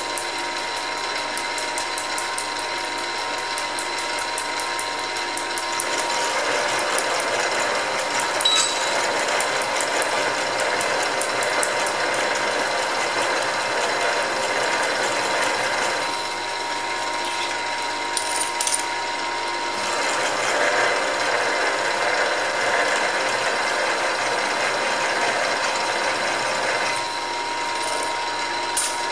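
Milling machine running with a freshly sharpened twist drill cutting into a metal plate. There is a steady gear whine and a fast, even ticking at first. Heavier cutting noise comes in about 6 s in and again about 20 s in, each lasting several seconds.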